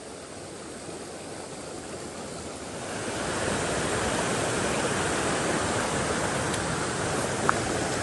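Mountain stream rushing over rocks, a steady noise of running water that grows louder about three seconds in and then holds steady.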